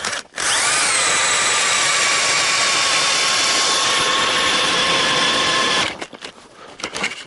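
Cordless drill turning an ice auger through river ice. The motor spins up with a short rising whine, runs steadily under load for about five seconds, then stops.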